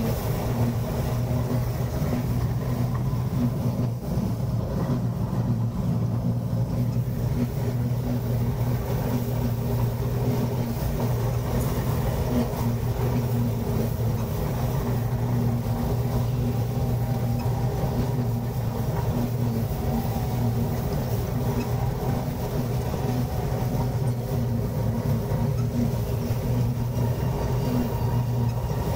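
Combine harvester running steadily while cutting wheat, heard from inside the cab: an even machine hum with a strong low steady tone that does not change.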